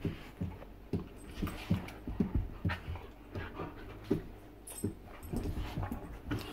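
Two bull terriers play-fighting on carpet: irregular panting and short breathy sounds, mixed with scuffling and knocks of paws and bodies.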